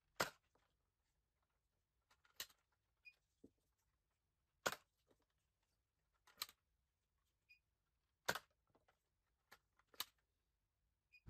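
X-Shot Blastercorn spring-powered foam-dart blaster being primed and fired: about six short, sharp clicks, roughly one every two seconds, with near silence between.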